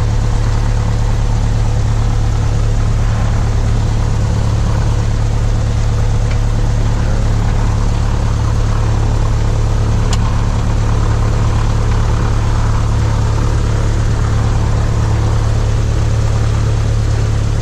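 Cessna 172's piston engine and propeller running steadily at low taxi power, heard from inside the cockpit as a constant low drone.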